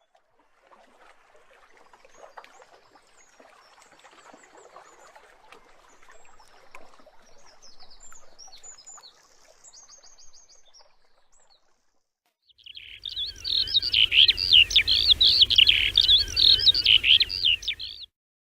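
Birds singing. First come faint chirps and quick trills over a soft rustling background. After a brief gap, much louder, dense twittering song runs for about five seconds over a low rumble, then cuts off suddenly.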